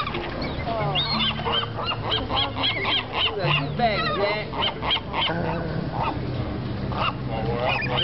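A flock of gulls and geese calling at once: many short, overlapping squawks and honks, several a second, over a soft background music bed of sustained low notes.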